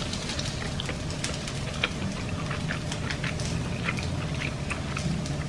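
Seitan pieces frying in oil in a pan: a steady sizzle with many small scattered crackles and pops.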